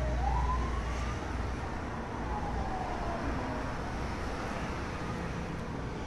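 A wailing siren: a single tone that slowly falls, rises and falls again, fading out about three and a half seconds in, over a low rumble.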